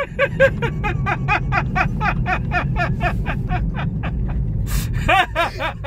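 A man laughing hard, a long run of quick 'ha-ha' bursts about five a second that breaks off briefly near the end and starts again, over the low road rumble of a moving car's cabin.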